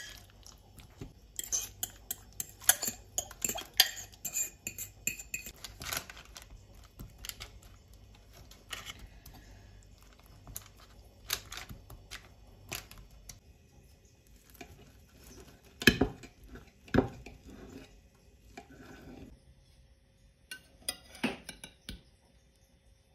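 Metal fork stirring a thick, wet mixture in a glass bowl, clinking and scraping against the glass, then tapping and spreading it in a paper-lined pan. Two louder knocks come about two-thirds of the way through.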